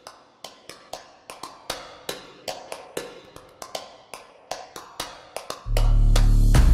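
Countdown-timer ticking sound effect, sharp ticks about four a second. Near the end, loud music with heavy bass comes in over it.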